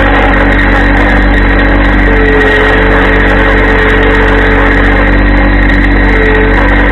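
Compact diesel tractor engine running steadily at constant speed, close by, with a faint whine joining in about two seconds in.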